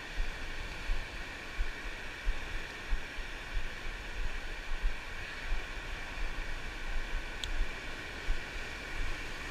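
Ocean surf washing steadily, with gusts of wind buffeting the microphone.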